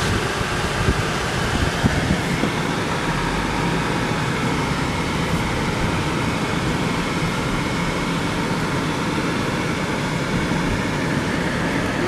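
Steady hum and rush of a car running, heard from inside its cabin.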